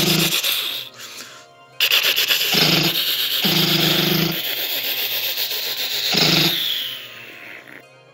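Air-combat sound effects over music: bursts of rapid machine-gun fire with a propeller fighter plane's engine, fading out near the end.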